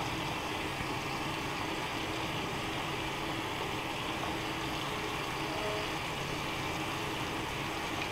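Steady hiss of water running from a tap while a slice of handmade soap is worked into lather in wet hands.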